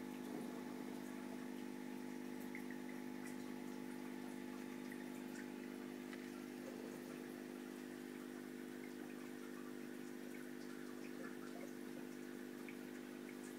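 Aquarium pump running with a steady low hum, and faint water trickling and ticking over it.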